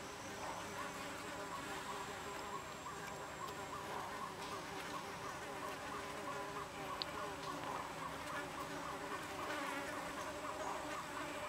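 Flying insects buzzing steadily, with a quick rhythmic pulsing running through the drone; one small click about seven seconds in.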